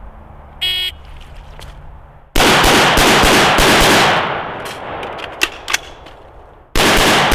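A shot-timer start beep, then a fast string of shots from an AR-type carbine fired in pairs. Then a pause for the reload after the carbine runs dry, with two sharp clicks, and the shooting starts again near the end.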